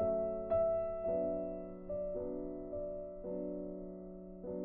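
Soft background piano music, single notes and chords struck every half second or so and left to fade.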